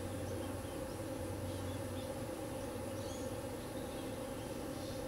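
Steady outdoor background hum with faint, short high chirps scattered through it.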